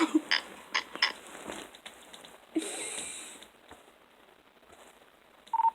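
Imitation fart noise, made by a person: a short breathy burst about two and a half seconds in, after a quick run of clicks in the first second.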